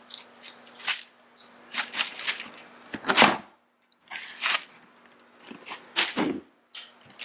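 Cardboard shoebox and tissue paper being handled: a string of short scrapes, knocks and paper rustles, the loudest about three seconds in.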